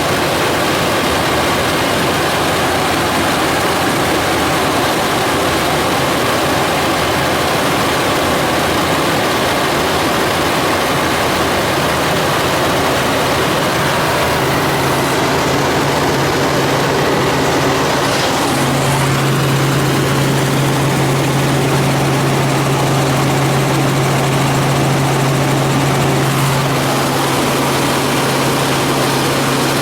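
Helicopter engine and rotor noise in flight, a loud steady roar. A low hum within it grows stronger a bit past halfway, then eases a few seconds before the end.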